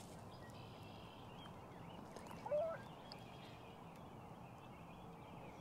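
Quiet outdoor background with no speech, broken once about two and a half seconds in by a brief, short wavering call.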